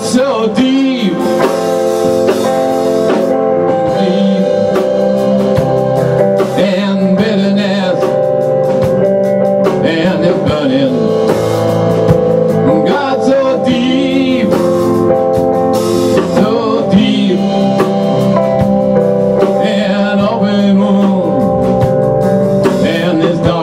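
A band playing live: two electric guitars and a drum kit, with a man singing lead.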